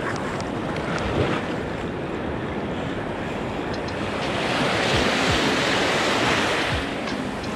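Small waves breaking and washing up a shallow sandy shore. A larger wash swells up about halfway through and fades again near the end.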